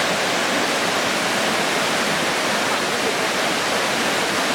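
Waterfall: water sliding down the rocks and falling into the pool below, a loud, steady rush.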